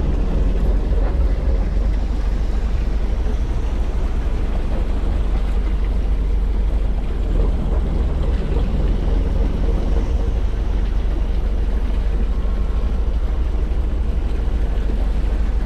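Fishing boat's engine running steadily, a constant deep rumble with a steady hum above it.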